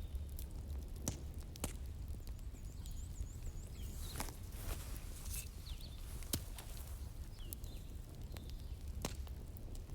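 Wood fire in a fireplace crackling, with sharp pops every second or two over a low steady rumble.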